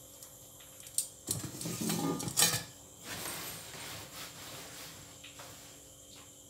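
Metal tongs and a paper-lined stainless steel bowl clattering as they are handled and taken off a wooden table: about a second and a half of clatter ending in a sharp clink. A softer rubbing follows as a cloth wipes the table.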